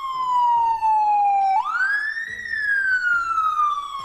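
The siren of the Mercedes-AMG GT 63 S 4MATIC+ Formula One medical car wailing: a slowly falling tone that sweeps quickly back up about one and a half seconds in, then falls slowly again.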